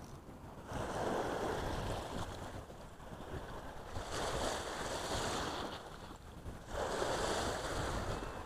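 Small waves washing up a sandy beach in three swells about three seconds apart, over a low wind rumble on the microphone.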